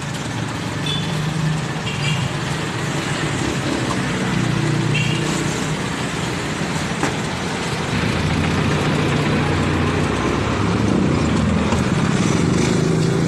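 Motorcycle engine running close by under street traffic noise, a steady low hum that grows louder about eight seconds in.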